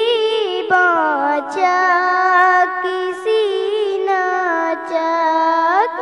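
High-pitched singing of a naat, an Urdu devotional song, with long held notes sliding up and down over a steady, drone-like lower voice. No clear words are made out.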